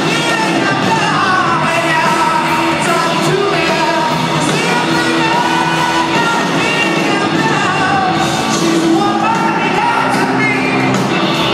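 Live rock band playing loudly, with a sung vocal line over electric guitars and drums, heard in a large concert hall.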